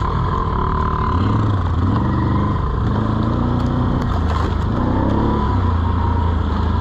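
Small off-road vehicle engine running while being ridden, its pitch rising and falling several times as the throttle is worked.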